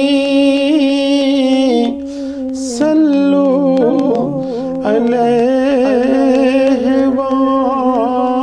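A man's voice singing a naat, drawing out long, wavering melismatic notes without words. There is a brief break about two seconds in.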